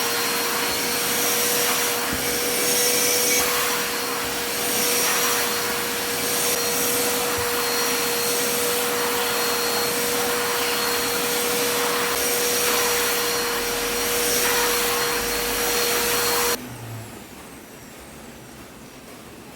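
Wet-and-dry vacuum cleaner running, a steady motor whine over rushing suction noise that swells and eases as the nozzle is worked over a sofa seat, then cuts off suddenly about sixteen seconds in when it is switched off.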